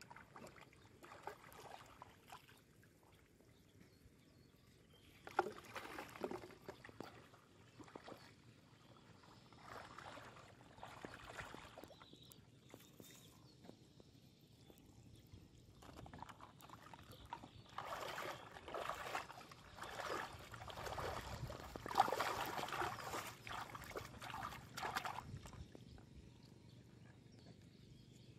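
Water splashing and sloshing in irregular bursts, busiest and loudest in the second half.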